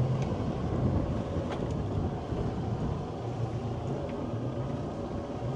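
Sailboat's Yanmar 4JHE four-cylinder diesel inboard running steadily at low speed while manoeuvring, with wind on the microphone.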